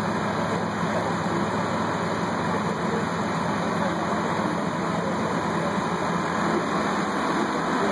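Steady drone of fire apparatus engines running at the fireground, a constant mechanical rumble with a wash of noise over it.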